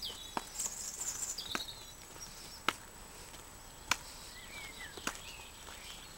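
Footsteps on a gravel track, a sharp crunching step about once a second, with birds chirping.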